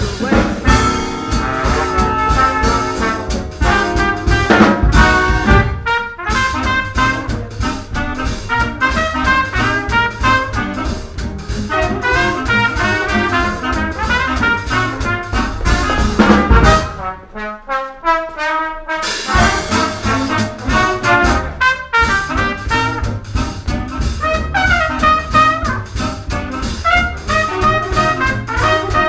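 A nine-piece swing band plays an instrumental chorus. Trumpet, trombone, alto sax and clarinet play over piano, guitar, upright bass and drums keeping a steady swing beat. About two-thirds of the way through, after a loud accent, the bass and drums drop out for a couple of seconds in a short break before the whole band comes back in.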